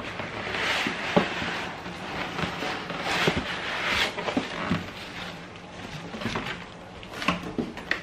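Cardboard box being opened and its plastic wrapping rustling and crinkling as the coffee maker is unpacked, with scattered light knocks of the cardboard being handled.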